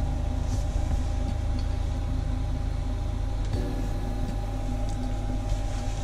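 A steady low machine hum with a few fixed tones, whose low part shifts in pitch about three and a half seconds in.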